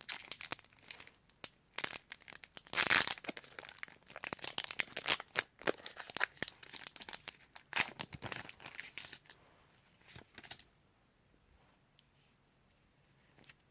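A Pokémon card booster pack's foil wrapper being torn open and crinkled, a quick run of sharp crackles and rips that stops about ten seconds in.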